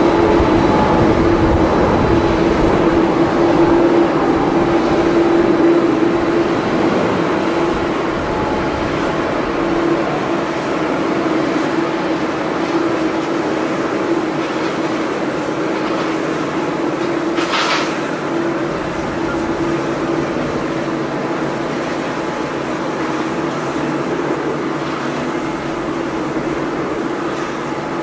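Boeing 777 twin-engine jet airliner climbing out after takeoff: a continuous jet roar with a steady droning note, slowly fading as it flies away.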